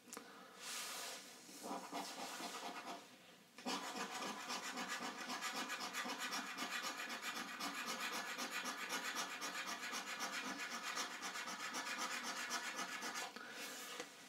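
Coin scraping the scratch-off coating from a lottery scratch card. A couple of short scrapes, then rapid back-and-forth scratching that runs steadily from about four seconds in until near the end.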